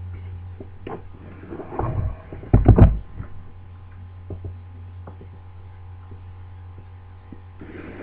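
Clicks and knocks of metal parts as an opened five-lever mortice deadlock and its levers are handled, the loudest cluster about three seconds in, with smaller ticks after. A steady low mains hum runs underneath.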